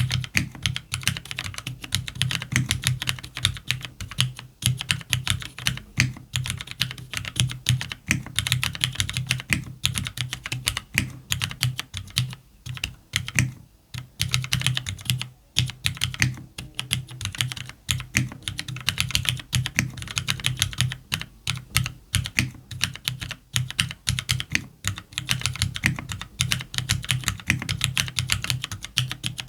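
Steady typing on a CannonKeys Devastating TKL mechanical keyboard with factory-lubed Cherry MX Black linear switches, an FR4 plate, lubed stock stabilisers and JTK keycaps, with a couple of short pauses about halfway through.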